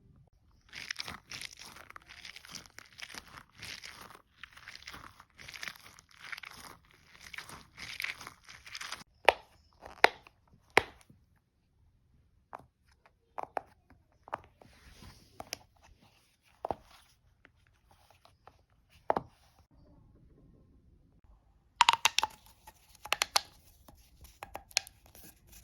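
Fidget toys being handled: about eight seconds of rapid crinkly rustling, tearing-like strokes, then scattered sharp clicks and taps, and a quick cluster of clicks near the end.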